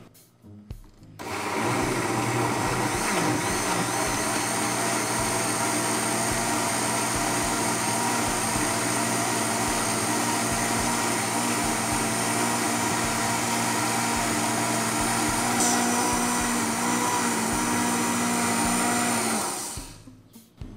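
Philco countertop blender with a glass jar, switched on about a second in and running steadily at full speed as it purees kale leaves and stems, apple and mint in water into a green juice. The motor winds down and stops near the end.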